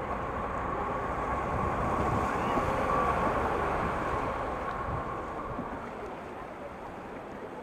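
River rapids rushing around a wooden river boat, with wind buffeting the microphone; the rush swells to a peak about three seconds in, then eases off.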